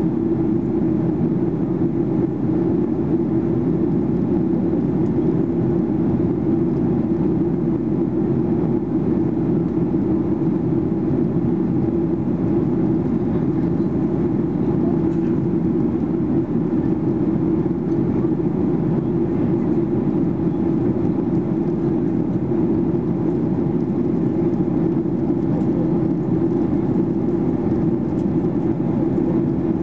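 Steady cabin noise of a Boeing 737-800 in flight: a constant low drone of its CFM56 jet engines and the airflow past the fuselage.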